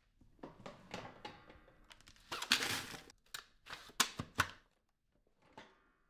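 Dyson V15 Detect cordless vacuum's clear bin being emptied into a stainless-steel pedal bin. Handling rustles come first, then a brief rush of dust and debris pouring out about two seconds in. A quick run of sharp plastic clicks and knocks follows from the bin mechanism and lid.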